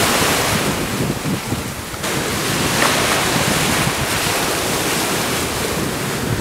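Sea surf washing in over a beach in shallow water, with a swell of rushing water about two seconds in, and wind buffeting the microphone.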